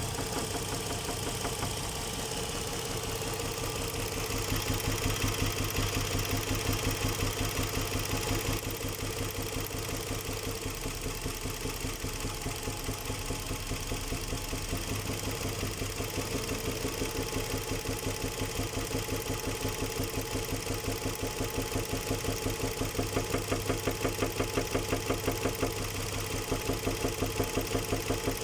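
Nissan Murano Z50's 3.5-litre V6 engine running with a steady, rapid, rhythmic knock, which the owner takes for a connecting-rod knock. It gets a little louder for a few seconds early on and again near the end.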